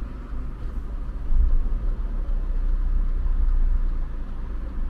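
Land Rover engine running with a steady low rumble that gets louder about a second in.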